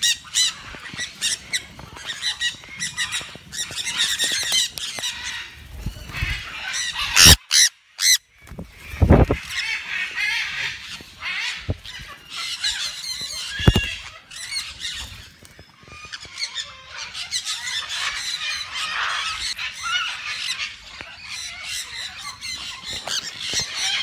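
A flock of sun conures screeching and chattering continuously at close range. A few loud, sharp knocks stand out about a third of the way through and once more a little later.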